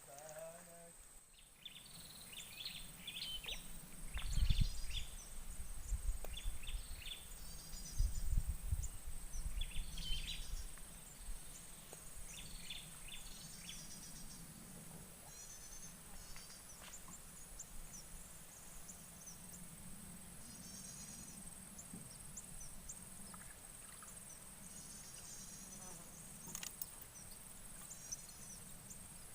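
Outdoor ambience: a steady high-pitched insect drone runs throughout, with scattered short bird chirps. Low rumbles come about four seconds in and again around eight to ten seconds.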